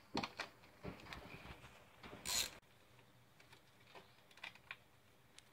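Scattered light clicks and knocks of a hand ratchet working loose a 10 mm bolt, with a brief scraping hiss about two seconds in and a few faint ticks near the end.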